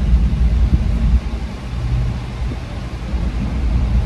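Steady low rumble of a car, heard from inside its cabin.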